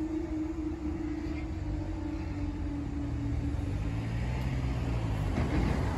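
Level crossing barriers rising after a train has passed, with a steady hum from the barrier mechanism fading out a few seconds in. Road vehicle engines then take over, with a low rumble growing louder near the end as traffic starts across.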